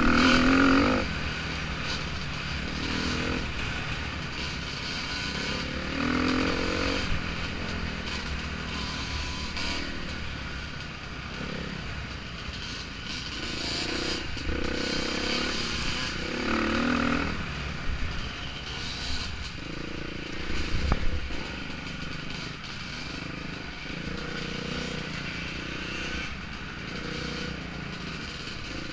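On-board sound of a dirt bike engine revving up and easing off over and over as the bike is ridden, with steady wind rush on the microphone.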